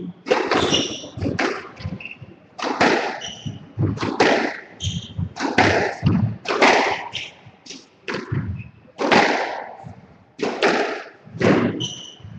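Squash rally: the ball cracking off rackets and the court walls again and again, each hit ringing in the enclosed court, with short squeaks of court shoes on the wooden floor between the shots.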